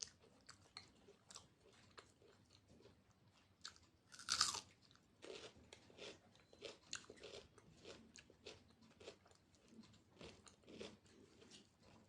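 A person chewing food close to the microphone: many small clicking, wet chewing sounds, with one loud crunchy bite a little over four seconds in.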